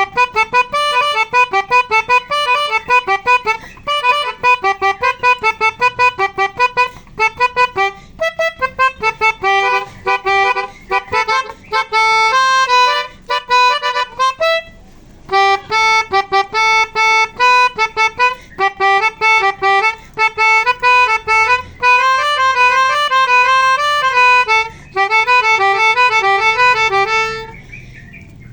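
Telolet multi-tone bus horn playing a fast melody, its reedy notes switching on and off in quick succession, with a brief pause about halfway through.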